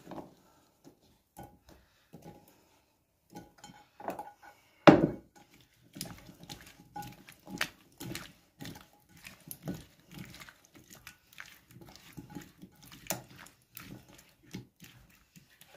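Hands mixing cut potato and carrot pieces into a thick sauce in a glass bowl: irregular soft clicks and wet handling sounds, with one louder knock about five seconds in.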